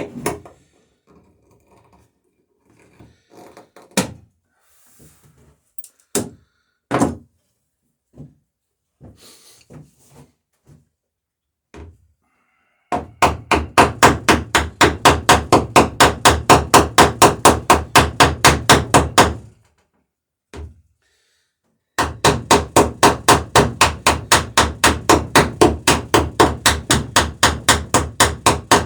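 Hammer riveting the wooden planks of a dory, peening the rivets over their burrs. The first dozen seconds hold scattered light knocks and taps. Then come two long, quick runs of evenly spaced hammer blows, several a second, with a pause of about two seconds between them.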